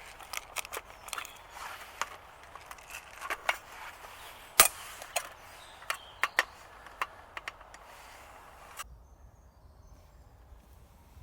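Dry wood cracking and snapping in an irregular run of sharp cracks, the loudest about halfway through, stopping abruptly near the end.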